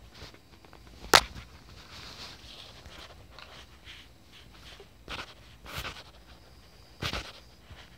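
Close-up handling noise of a phone camera against pillows and bedding: one sharp knock about a second in, soft fabric rustling, then a few muffled bumps and rubs near the end.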